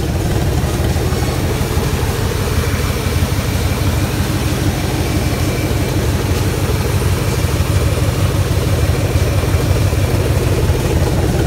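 Early-'90s Corvette V8 in a '53 Chevy rat rod idling steadily with a smooth, even idle and no lumpy-cam sound.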